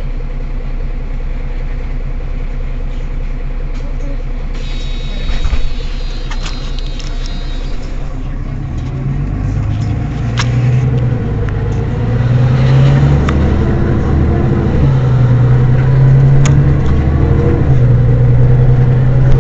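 Mercedes-Benz Citaro city bus's diesel engine running steadily at idle, with a single knock about five and a half seconds in. After about eight seconds the bus pulls away: the engine note climbs, drops back and climbs again several times as it works up through the gears, growing louder.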